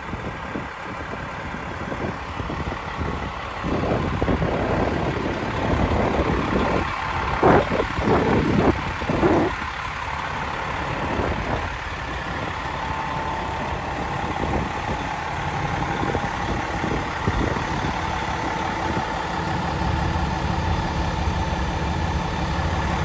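Fire pumper's diesel engine idling steadily, with some irregular louder bumps and rustles between about four and ten seconds in.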